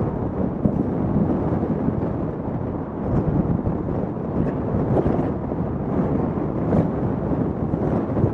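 Steady rumble of a car driving along a road, tyre and wind noise, with a few faint knocks.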